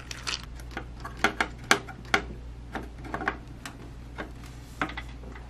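Irregular small clicks and taps of a hand screwdriver working screws at a CPU socket's mounting holes on a motherboard, over a steady low hum.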